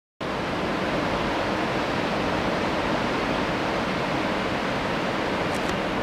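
Steady, even rushing of ocean surf, with no separate waves standing out.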